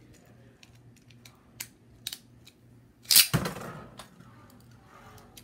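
Hard plastic Beyblade parts and launcher clicking and snapping as they are handled and fitted together, with one sharp, much louder clack about three seconds in.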